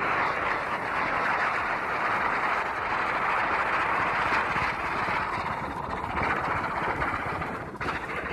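Chakri ground-spinner firework burning, a steady loud rushing hiss of its spark jet as it spins a toy propeller, easing off near the end.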